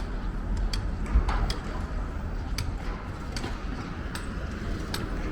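Footsteps on pavement at an even walking pace, about one step every 0.8 s, over a low steady rumble.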